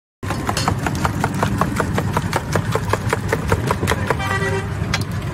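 Motor-driven sugarcane juice crusher running, a steady hum with an even clatter of about five clicks a second.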